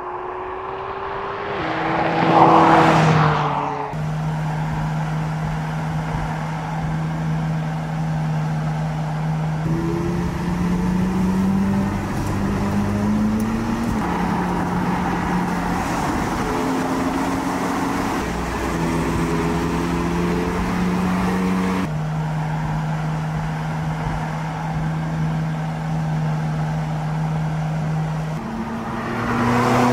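McLaren 675LT Spider's twin-turbo V8 sports-car engine. About two seconds in it passes close by, loud, with the engine note falling away. It then runs at steady revs as the car is followed, with a few short stretches of climbing revs in the middle, and another loud pass-by comes near the end.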